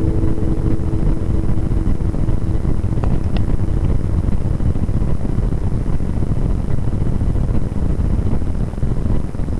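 Steady low rumbling noise on the phone's microphone, the kind made by handling or rubbing it, with no guitar being played. The last ringing notes of a strummed acoustic guitar die away right at the start.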